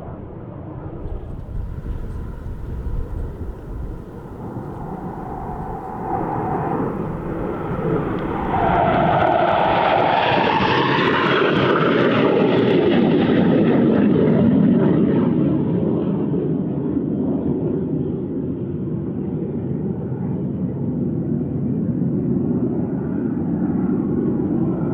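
Military aircraft making a low pass: engine noise builds, peaks with a whine that drops in pitch as it goes by, then a long rumble that fades slowly.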